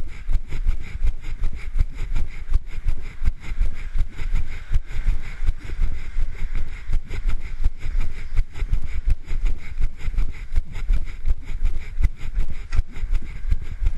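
A runner's footfalls and the body-worn camera jolting with each stride, about three thuds a second, over wind rushing on the camera's microphone.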